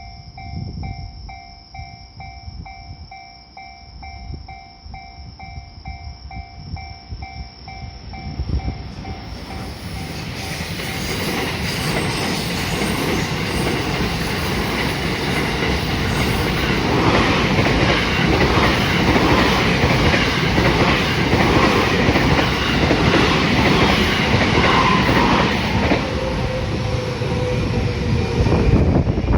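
Japanese level-crossing warning bell ringing at a steady pulse. It is soon drowned out as an electric train approaches and passes close by, its wheels rumbling and clattering over the rails, loud from about twelve seconds in.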